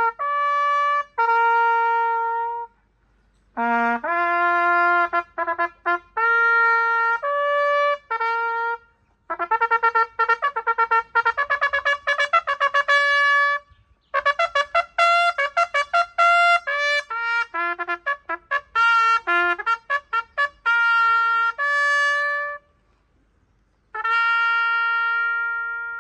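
Solo trumpet playing a melody in phrases, with quick runs of short notes in the middle and long held notes closing each phrase, separated by brief silences.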